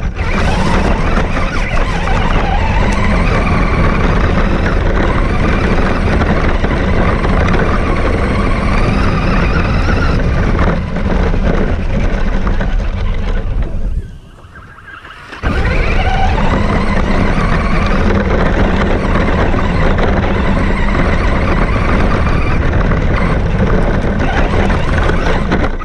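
Radio-controlled car running, a motor whine rising and falling in pitch over a loud, dense rumble. It cuts out for about a second and a half midway, then starts up again.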